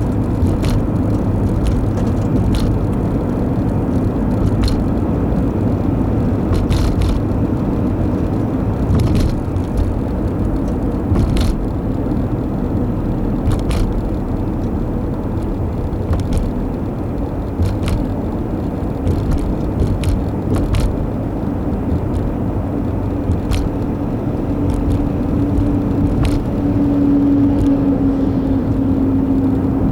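Road noise inside a moving car: a steady low rumble of tyres and engine, with scattered light ticks and clicks. A steady hum rises into it over the last few seconds.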